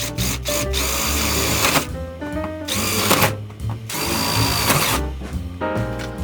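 Power drill running in three short bursts of about a second, half a second and a second, over background music.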